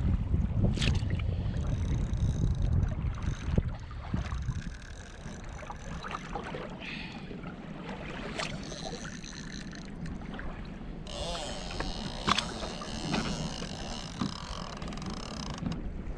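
Wind buffeting the microphone for the first few seconds, then water moving around a kayak and a spinning reel working under the pull of a hooked fish, with a few sharp clicks. A little past the middle the reel gives a high buzzing for about four seconds.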